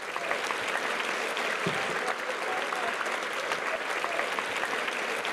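Audience applauding: dense, steady clapping that breaks out right away and carries on unbroken.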